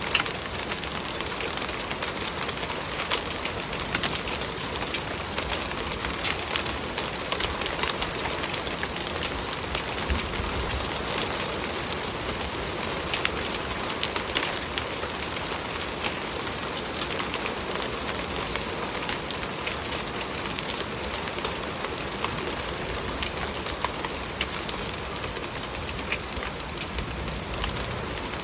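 Small hail mixed with rain pelting down: a dense steady hiss of rain, peppered with many sharp little ticks of hailstones striking.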